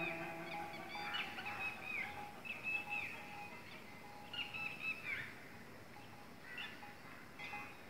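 Birds calling outdoors: short whistled phrases that bend down in pitch come every second or two, over a steady run of short, low repeated notes.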